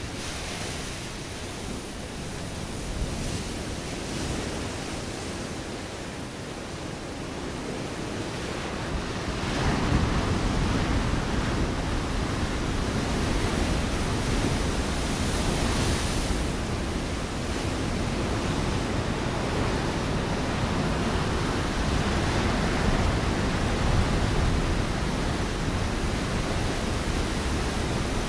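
Ocean waves breaking against a rocky shore as a steady wash of surf. About nine and a half seconds in a bigger wave comes in and the surf grows louder and deeper, staying that way.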